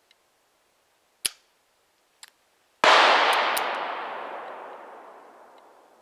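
A single shot from a Pietta 'Buffalo' 12-inch-barrel New Model Army black-powder cap-and-ball revolver about three seconds in, its report dying away over about three seconds. Two sharp clicks come before it.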